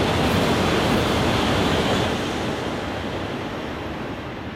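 Tohoku Shinkansen train going by with a loud, even rushing noise that fades from about two seconds in as it pulls away.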